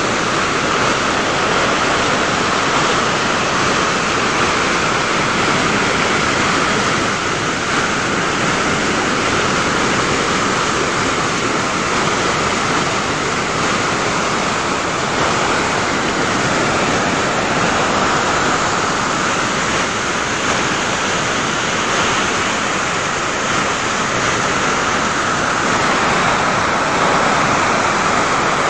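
Floodwater pouring over the washed-out edge of a road and cascading into a gully below: a steady, loud rush of water.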